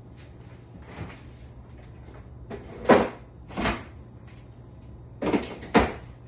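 Kitchen cupboard doors banging shut as things are put away. There is a light knock about a second in, then two louder bangs around the middle and two more near the end, over a low steady hum.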